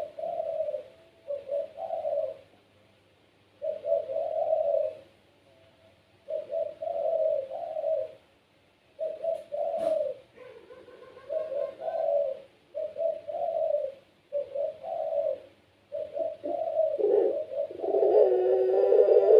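Puter pelung dove cooing in repeated low phrases separated by short pauses, running into a longer unbroken stretch of cooing near the end. A single sharp click about halfway through.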